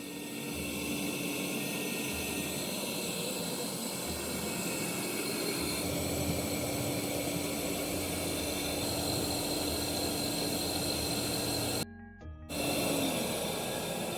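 Background music over a steady hum with a held tone. The sound drops out abruptly for about half a second near the end.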